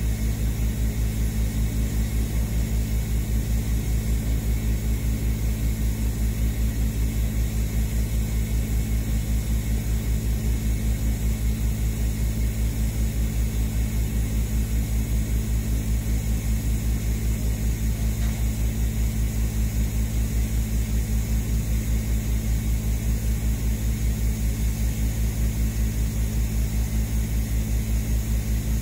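Stainless steel pipe being TIG-welded: a steady low hum from the welding setup, pulsing evenly several times a second.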